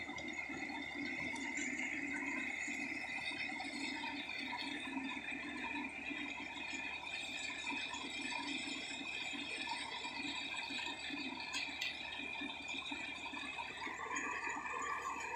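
Tractor-driven paddy thresher running steadily under load while threshing rice, its drum and blower making a continuous rushing noise over the tractor engine as straw is blown out of the top chute.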